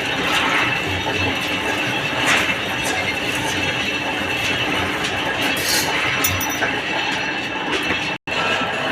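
Metal lathe running while machining a steel trolley axle: a steady mechanical whine with scattered clicks and rattles. The sound cuts out briefly near the end.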